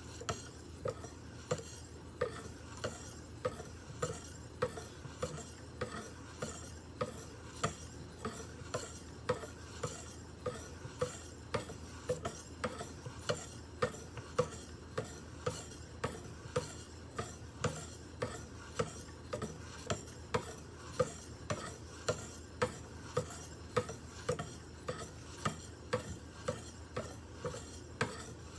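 A 1.4-micron ceramic sharpening stone on a guided-rod sharpener rubbing along a Spyderco Roc Salt blade in quick, very light strokes, a faint scrape with a sharp click at each stroke, a bit under two a second. This is the first ceramic polishing stage, which brings the edge toward a mirror polish.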